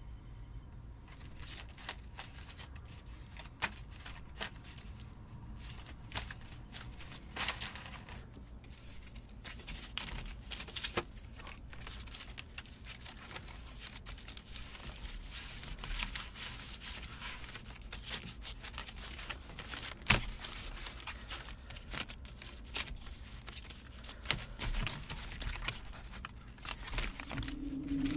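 Dry cattail leaf strips crinkling, rustling and snapping as they are interlaced by hand into a weave, with irregular crackles and one sharper snap about two-thirds of the way through.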